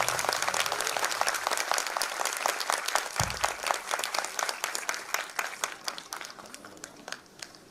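Audience applauding, a dense patter of claps that thins out and dies away over the last couple of seconds.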